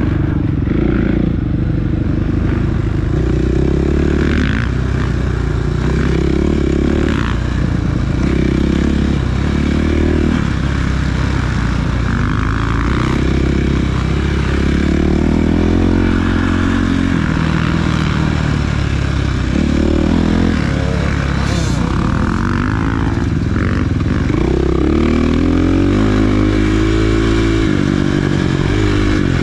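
Off-road motorcycle engine being ridden hard, revving up and falling back again and again as the throttle is worked.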